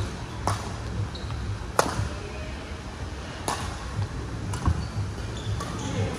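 Badminton rally: racket strings hitting a shuttlecock back and forth, about five sharp pops spaced one to two seconds apart.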